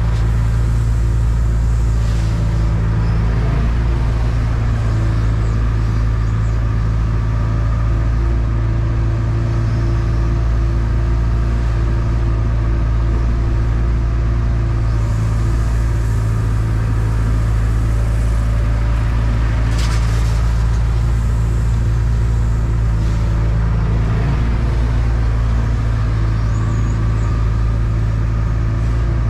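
Diesel engine of a Volvo 235EL excavator running steadily, heard from inside the cab, with a few brief knocks.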